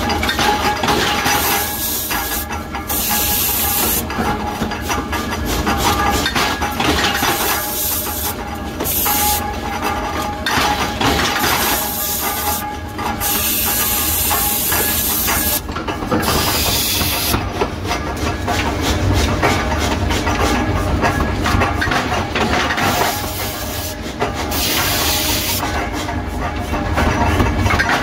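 Repeated bursts of hissing from a spray jet blowing onto the hot die of a forging press, each lasting about a second, over the steady hum and rumble of forge-shop machinery.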